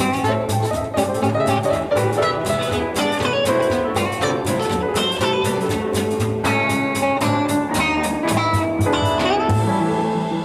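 Blues music played live: guitar over a steady drum beat. The drumming stops about nine and a half seconds in.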